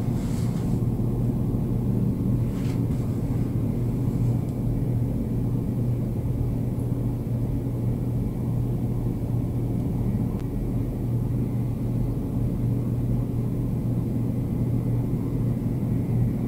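Steady low rumble of Niagara Falls, with a constant low hum running under it.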